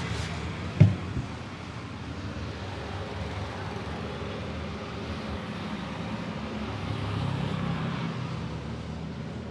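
Steady road traffic rumbling, swelling briefly near the end. A sharp thump, the loudest sound, comes just under a second in, followed by a smaller knock.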